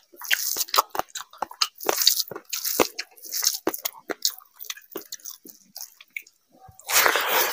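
Close-miked eating of rice and fish curry by hand: open-mouthed chewing with many short wet smacks and clicks, and squelches of rice being worked with the fingers. Near the end there is a louder, longer rush of sound lasting about half a second.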